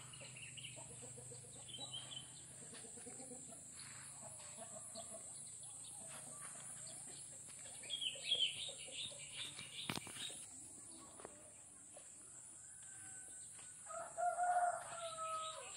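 A rooster crowing once near the end, a drawn-out call that falls slightly at its close. It sits over a steady high insect buzz, with a short burst of bird chirps about halfway through.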